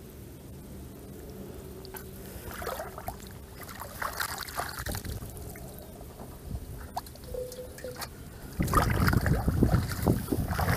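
Hands squelching and splashing in shallow muddy water, with scattered small splashes and drips. About three-quarters of the way through it turns much louder and rougher, with heavier splashing and low rumbling.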